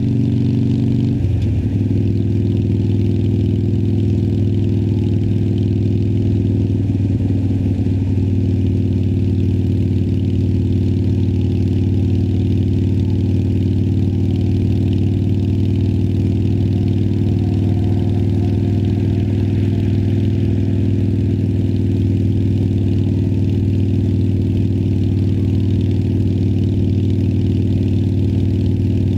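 Harley-Davidson Sportster Iron 1200's air-cooled V-twin through Vance & Hines Twin Slash slip-on mufflers, running at a steady pitch, with a sudden short break and a step down to a lower pitch about a second in.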